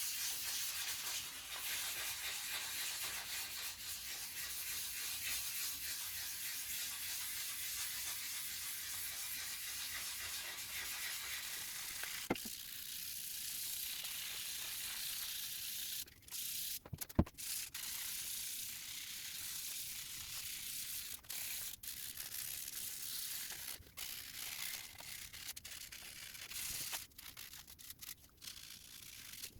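Sandpaper rubbing over the primed surface of a 3D-printed PLA bust, a steady high-pitched rasp. About halfway through it turns stop-start with short pauses, and there are a couple of sharp clicks.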